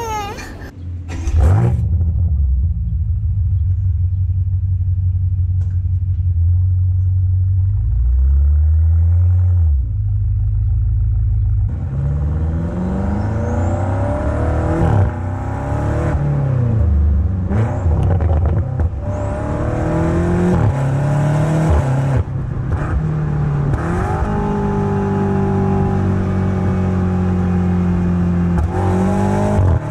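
Exhaust of a BMW M5 (F90) 4.4-litre twin-turbo V8, heard at the tailpipes. It idles steadily for about ten seconds, then is revved in a series of throttle blips, the pitch rising and falling. Near the end it is held at a higher steady engine speed for several seconds.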